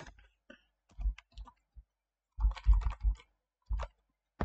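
A string of separate clicks and taps from a computer mouse and keyboard, with a cluster of louder, dull knocks about two and a half to three seconds in.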